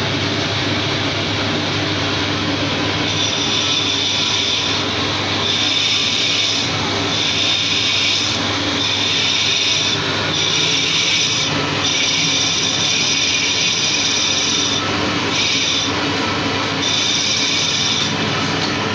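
Metal lathe running under cut: a steady low hum from the machine, with the cutting tool on the spinning metal workpiece giving a high-pitched whine that starts about three seconds in and keeps breaking off and resuming.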